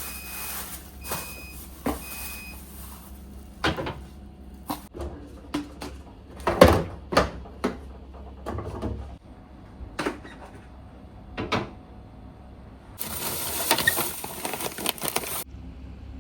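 Kitchen handling sounds, with a series of knocks and clicks of things being set down and moved. Three short electronic beeps come at the start, and a couple of seconds of rustling come near the end.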